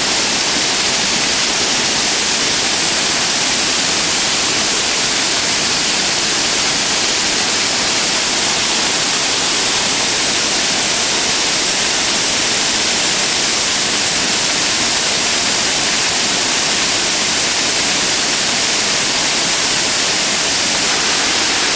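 Large waterfall: a loud, steady rush of falling water.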